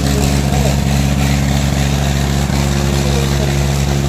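Tractor's diesel engine running close by, loud and steady at an even pitch.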